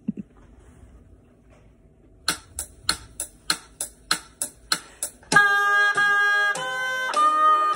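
A run of about ten evenly spaced clicks, roughly three a second, then an oboe begins a slow melody of long held notes, the opening of the exam piece.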